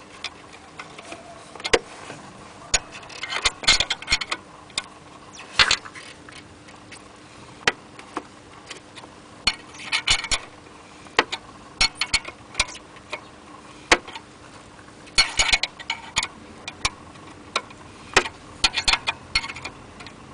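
Wrench clicking on the alternator's adjusting bolt in short quick bursts, with single metallic clicks in between, as the alternator is drawn over to tension the drive belt.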